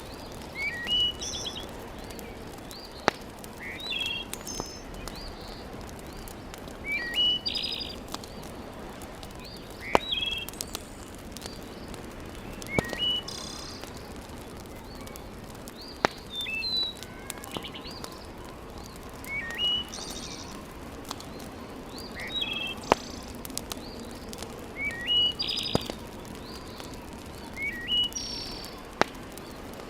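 A songbird sings a short chirped phrase about every three seconds over a wood fire burning in a fireplace, with a soft steady hiss and now and then a single sharp crackling pop.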